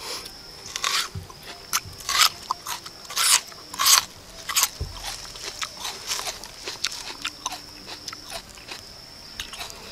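Crisp crunching bites into a whole raw red onion, the loudest a few seconds in, followed by wet chewing of the crunchy mouthful.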